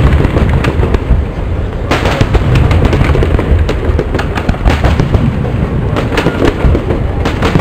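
Aerial firework shells bursting in rapid succession: a continuous barrage of deep booms mixed with many sharp cracks, a fresh cluster of cracks setting in about two seconds in.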